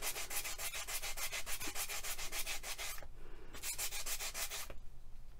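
Wet foam-backed abrasive sponge pad rubbed over a polymer clay piece in rapid, even back-and-forth sanding strokes, pausing briefly about three seconds in and again just before the end.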